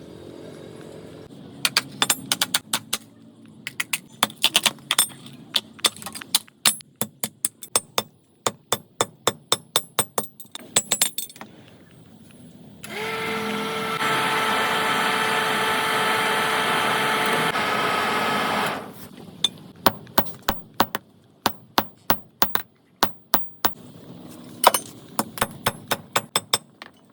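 Runs of sharp hammer blows on metal, several strikes a second, broken about halfway through by a power tool running steadily for about six seconds, then more hammering.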